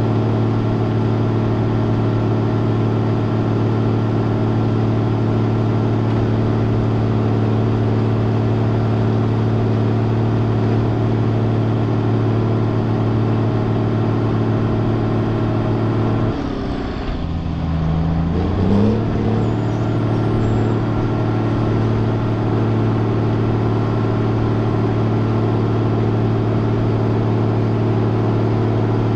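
Cat 140H motor grader's diesel engine running steadily under load. About 16 seconds in, the engine note dips and thins for a couple of seconds, then rises back up to its steady pitch.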